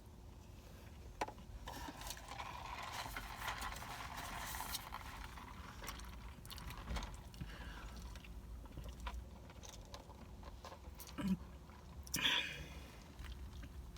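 Quiet eating and handling sounds: soft chewing with rustling and scraping of takeout food, scattered small clicks, and two short louder knocks near the end.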